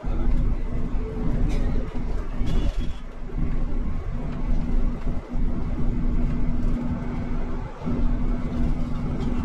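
Ride noise inside a moving IE-TRAM battery-electric articulated bus: a steady low rumble with a constant hum that fades in and out, and a few faint high squeaks and rattles.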